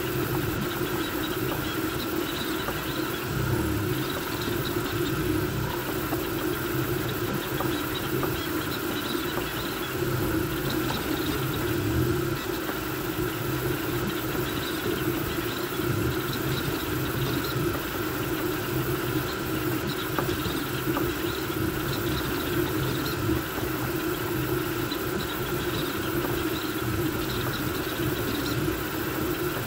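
Voron V2.4 CoreXY 3D printer running a fast print: a steady fan whir with the stepper motors' buzz rising and falling as the toolhead darts back and forth.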